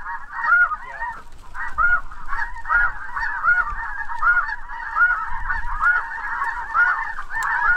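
Snow goose calling: a continuous chorus of high, short honks, many overlapping and repeating several times a second.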